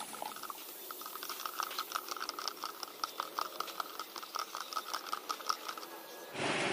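Metal bar spoon stirring a drink in a plastic cup, tapping and clinking against the cup wall in quick light ticks, about five a second. Near the end a much louder rushing noise cuts in suddenly.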